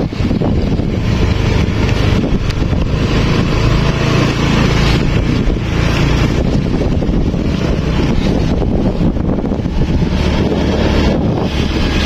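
Wind buffeting the microphone over the steady low rumble of a running engine.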